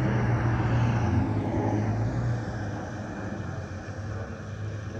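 Airbus A330-200's twin Pratt & Whitney PW4000 turbofans rumbling as the jet passes overhead, with a low hum under a broad roar that fades and drops slightly in pitch as the aircraft moves away.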